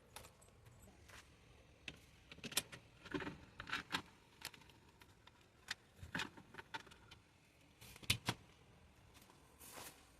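Scattered light clicks, knocks and rustles of things being handled, with a sharp double knock about eight seconds in.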